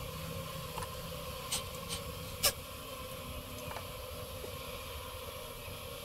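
Hands working honeycomb out of a bee nest in a wall cavity: a few sharp clicks and knocks, the loudest about two and a half seconds in, over a steady hiss.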